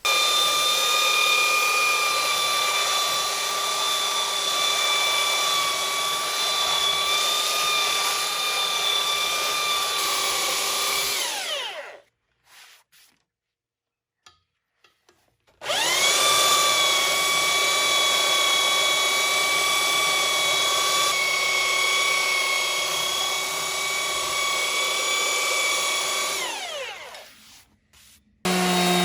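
Electric sander running on wooden log walls, a steady motor whine; it spins down about eleven seconds in, stops for a few seconds, starts up again and spins down again near the end. A different steady, lower hum starts just before the end.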